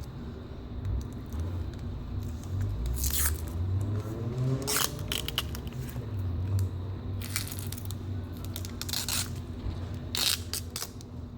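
A handful of brief scraping and rustling handling sounds over a low rumble and a faint steady hum.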